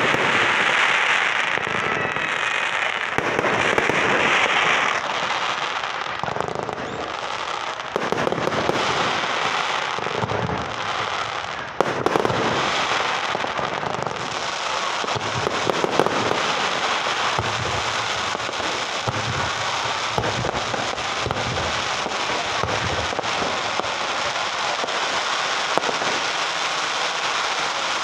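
Fireworks display: aerial shells bursting and crackling stars popping in a dense, continuous crackle, with sharper bangs scattered throughout. One stands out after a brief lull about twelve seconds in.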